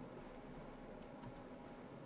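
Quiet room tone with a steady faint hiss, and a few soft clicks from the computer keys or mouse: one right at the start and a couple about a second in.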